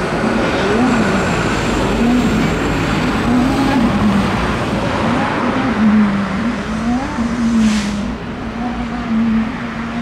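Ferrari F1-75 Formula 1 car's 1.6-litre turbocharged V6 running at low revs, its pitch rising and falling over and over. It grows quieter over the last couple of seconds as the car moves away.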